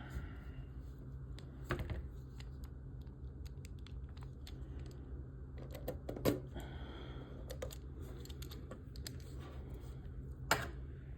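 Scattered small clicks and taps of a screwdriver and screws being handled against model-kit parts, with a few sharper clicks, over a low steady hum.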